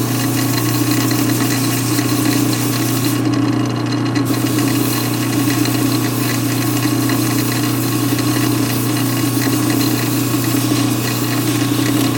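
Metal lathe running steadily with a constant hum, an aluminium piston spinning in its chuck while 180-grit sandpaper is held against it, adding a scratchy hiss. The hiss drops away for about a second, roughly three seconds in, then returns.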